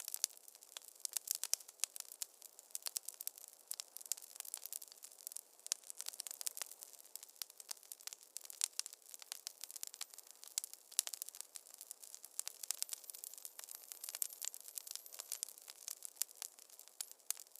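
Wood fire crackling in a fireplace: a dense, irregular run of sharp pops and snaps over a soft hiss.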